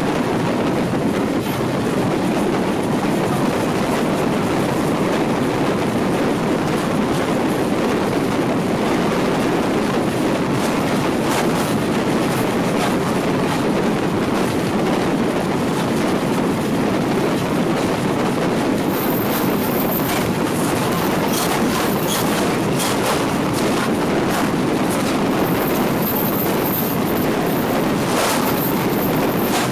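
Passenger train running along the track: a steady rumble of wheels on rail with clicks from the rail joints, which come more often in the second half.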